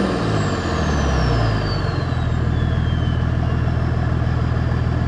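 Nissan TD42 4.2-litre straight-six turbo diesel, with a T3/T4 turbo and a 3-inch exhaust carrying one small muffler, settling from a throttle blip back to a steady idle within about two seconds. A thin whistle from the turbo winds down in pitch over the first three seconds or so.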